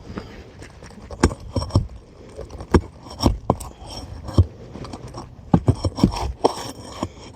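A metal nail-removal tool clicking and scraping against asphalt shingles and roofing nails, with about a dozen irregular sharp metallic clicks and knocks.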